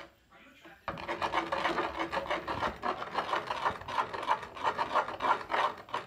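A spoon scraping quickly and repeatedly against a clear dish while slime is stirred. After a short pause it starts about a second in and keeps up a fast, rhythmic rasp.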